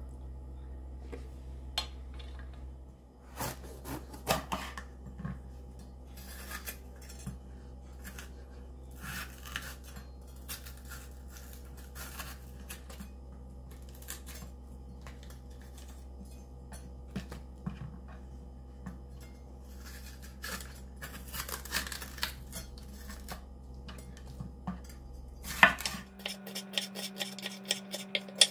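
Chef's knife on a wooden cutting board, cutting a bell pepper: scattered taps and scrapes as the pepper is slit open and seeded, then a quick, even run of chopping strokes near the end as it is sliced thin.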